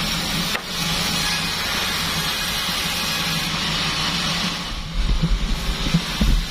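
Bandsaw sawmill machine running with a steady hum and hiss. From about five seconds in comes a run of low, irregular thumps.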